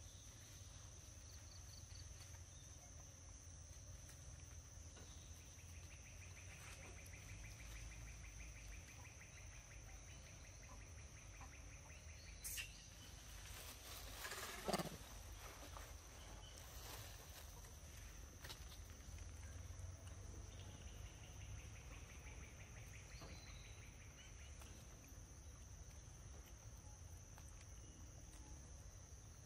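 Quiet forest ambience: a steady high insect drone, with two rapid pulsing trills of a few seconds each and a couple of brief sharp sounds about halfway through.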